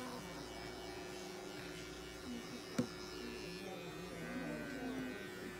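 Small cordless electric pet clipper buzzing steadily as it shaves out matted fur from a long-haired cat, with one sharp click a little under three seconds in.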